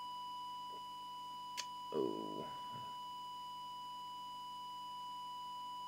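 Steady, pure whistle-like test tone from an audio oscillator modulating the CB transmitter for a deviation check, which reads low: just under 1 where it should be 2.5. A single click about one and a half seconds in and a brief low murmur of voice about two seconds in.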